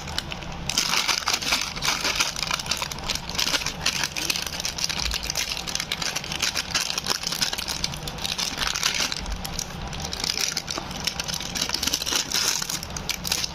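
Plastic snack wrapper crinkling and rustling as it is handled and opened, a dense run of crackles.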